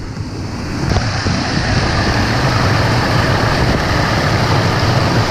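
Water of a small creek waterfall pouring over granite close by, a steady rushing that gets louder about a second in.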